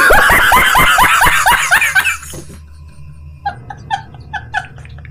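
A man laughing hard, a loud rapid run of 'ha' bursts that falls in pitch and dies away after about two and a half seconds. From about three and a half seconds in comes a thin, squeaky run of short high bursts, about five a second.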